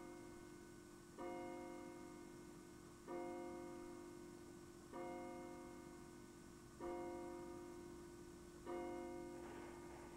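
Background piano music: the same chord struck five times, about every two seconds, each left to ring and fade.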